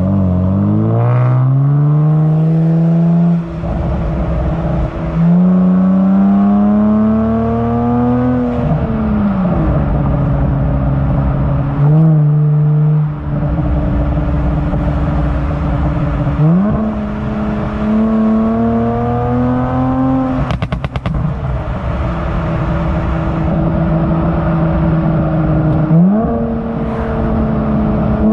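Kia Stinger GT's twin-turbo V6 exhaust under acceleration through the gears, its pitch climbing and then dropping at each shift. About twenty seconds in there is a quick rattle of crackles and pops from the pop-and-bang tune.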